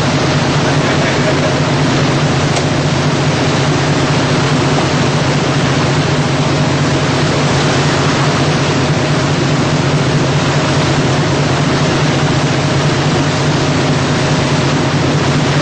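A motor vessel under way: a steady low engine hum with a faint constant whine, under an even rushing noise that does not let up.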